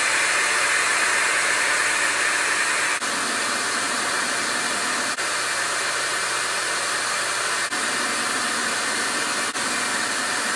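Hair dryer blowing steadily as part of a heavy load of about 105 amps drawn through an inverter from a 12.8 V LiFePO4 battery. The rush is broken by four very brief dips.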